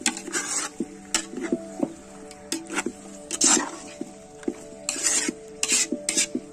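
A metal spoon scraping and clinking against the inside of a large metal pot while it stirs wet raw chicken pieces, in irregular strokes. Soft background music plays under it.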